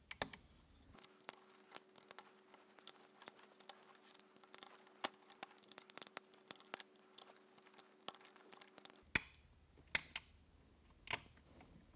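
Hand ratchet with a socket clicking in quick, irregular runs as bolts are tightened down onto a metal bracket.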